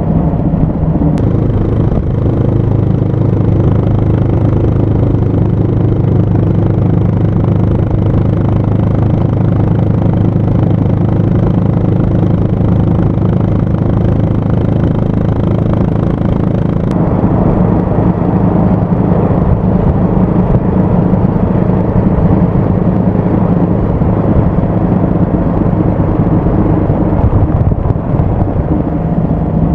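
Honda GB350's air-cooled single-cylinder engine running steadily while riding. The engine note shifts about a second in and again around seventeen seconds in.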